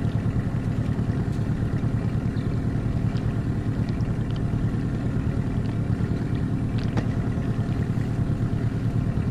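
Small boat's outboard motor running steadily at low speed, a constant low hum mixed with wind and water noise.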